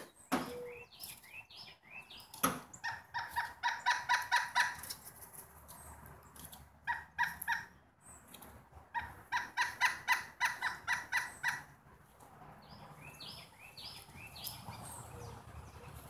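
Large woodpecker calling: two rapid runs of loud, ringing notes at about five a second, with shorter scattered call notes between them.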